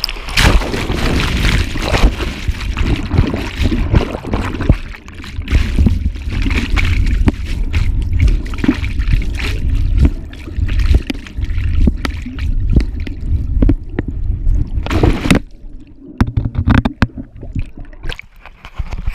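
Rushing whitewater churning around a camera held in the rapids, partly underwater, with heavy rumbling and many knocks as the water and body bump against it. A loud splash comes about fifteen seconds in, then quieter sloshing and gurgling with a few splashes.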